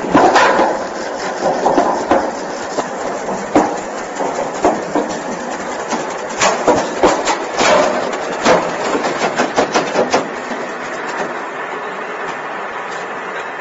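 Big-span roll forming machine's bending section running as it curves a steel roof panel: a steady mechanical running noise with irregular metallic knocks and clanks, most frequent from the middle of the stretch until a little past it.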